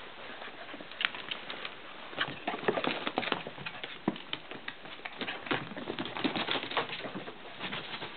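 Puppies playing on a hardwood floor: claws clicking and scrabbling, with irregular bumps and knocks, busiest in the middle.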